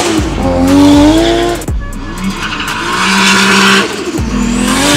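A Nissan Skyline R34 drifting: the engine revs climb three times, falling away sharply between pulls, over the hiss and squeal of sliding tyres.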